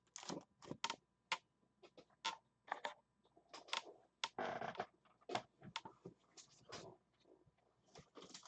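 Trading cards and card packs being handled on a table: an irregular run of light taps, clicks and scrapes, with a longer rustling scrape about four and a half seconds in.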